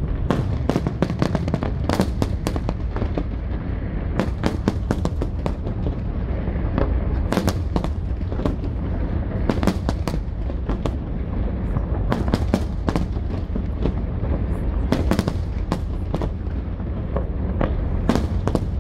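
A fireworks display: many shell bursts in quick, irregular succession, several bangs a second, over a continuous low rumble of booms.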